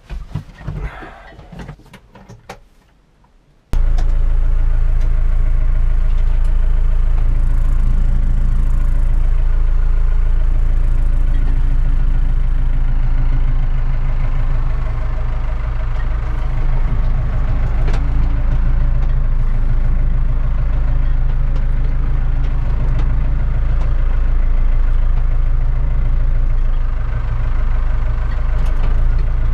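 McCormick C100 Max tractor's diesel engine idling steadily, heard from inside the cab. It comes in suddenly about four seconds in, after a few scattered clicks and knocks.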